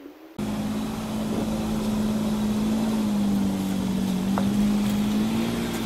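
SUV engine idling: a steady drone with a slightly wavering hum, starting abruptly about half a second in.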